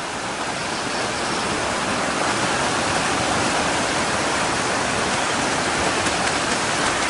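Rushing water of Havasu Creek: a steady, even wash that grows a little louder.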